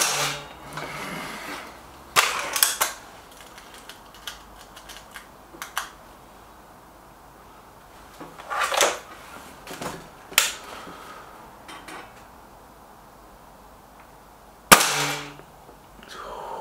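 Break-barrel air rifle fired, a sharp crack with a short ring after it. Then come clunks and a run of small clicks as the rifle is cocked and reloaded, and a second shot near the end.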